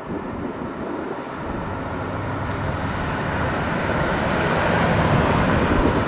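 1967 Ford Thunderbird with its 390 cubic-inch V8 driving toward the microphone, engine rumble and tyre noise growing steadily louder as it approaches.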